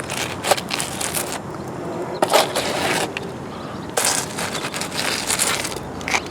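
Irregular gritty scraping and crunching of rock and concrete mix being worked by hand.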